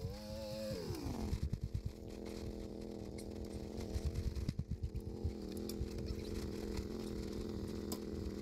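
Engine of a turbocharged Polaris RZR side-by-side: the revs rise briefly and then drop away about a second in, after which it runs at a steady speed, with low rumbling thumps underneath.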